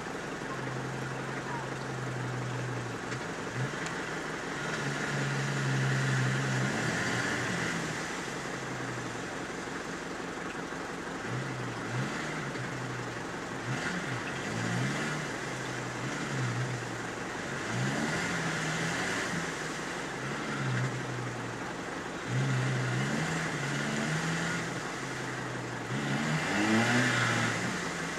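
Off-road 4x4 engine revving hard in repeated surges, rising and falling in pitch every few seconds, as the vehicle spins its wheels through deep mud.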